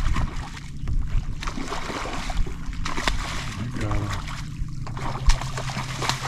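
Water splashing and sloshing as a hooked fish thrashes at the surface beside a flats skiff, with irregular sharp splashes over a steady low hum.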